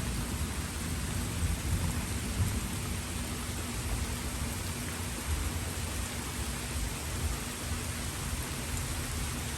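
Steady rain falling, with a low rumble of distant thunder swelling about one to three seconds in and fading back under the rain.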